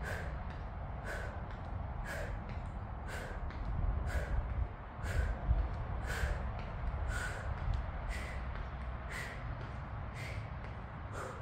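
A woman's sharp breaths, one about every second in time with her repetitions of standing opposite knee-to-elbow crunches, over a steady low rumble.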